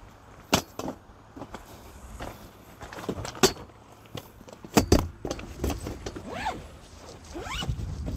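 A series of sharp clicks and knocks, as of objects being handled and set down, with a few short rising sounds near the end.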